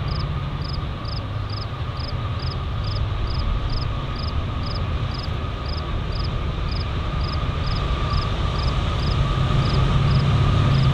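Approaching train rumbling, building steadily louder, with a steady hum over it. A regular high-pitched chirp repeats about twice a second throughout.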